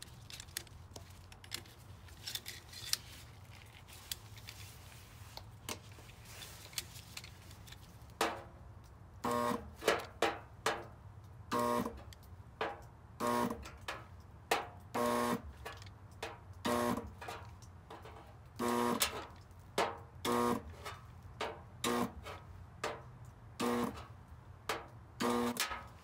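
Homemade microwave-transformer spotter (electric dent puller) firing its copper shrinker tip on a steel car fender: a long series of short electric buzzes, one to two a second, starting about eight seconds in, as each pulse of current heats the metal to shrink it.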